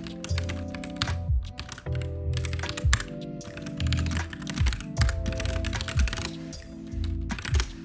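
Computer keyboard typing: quick, irregular keystrokes in runs, over lofi background music with a recurring low beat.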